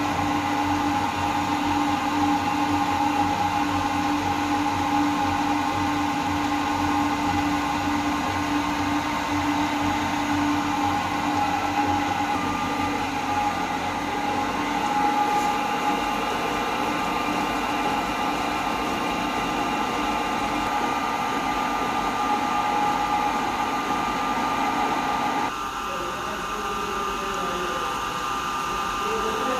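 CNC milling machine running and cutting with an end mill: a steady mechanical whine made of several held tones over motor and cutting noise. About 25 seconds in, the sound drops in level and changes character.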